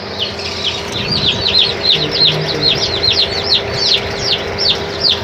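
Newly hatched chicks, Australorp and Rhode Island Red, peeping continuously: many short, high, downward-falling peeps overlapping several times a second, over a steady low hum.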